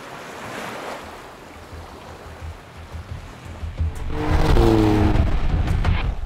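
Sea surf and wind, then about four seconds in a louder rushing swell with a deep rumble and a wavering hum that rises and falls.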